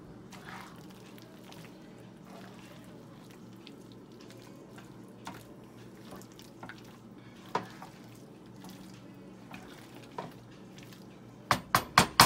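A utensil stirring and folding thick, creamy pasta in a nonstick skillet: faint, sparse wet squelches and light clicks over a low steady hum. Near the end, a quick run of loud knocks, about five a second, as the utensil is struck against the pan.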